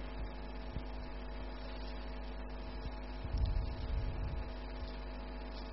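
Steady electrical mains hum of several steady tones over a low rumble, with a few faint low thumps a little past halfway.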